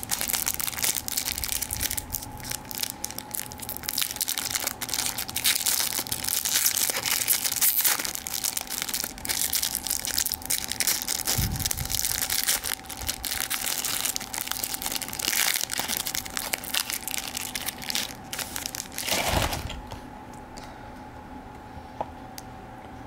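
Panini Chronicles trading-card pack's foil wrapper crinkling and crackling as it is handled and opened, with a few soft handling thumps. The crinkling stops about 20 seconds in, leaving a faint steady hum.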